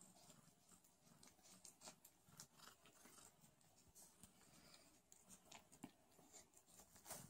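Near silence with faint, scattered soft clicks: sphynx cats licking and grooming a newborn kitten.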